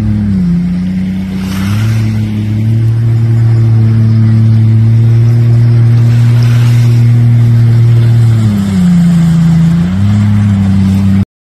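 Jet ski engine running at steady speed, easing off briefly twice and picking up again, with a light hiss of wind and spray. The sound cuts off suddenly near the end.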